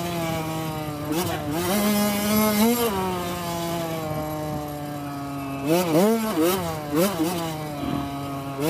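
Dirt bike engine being ridden, its pitch rising and falling with the throttle. It blips twice early on, holds a steadier, slowly dropping pitch through the middle, then revs up and down quickly several times near the end.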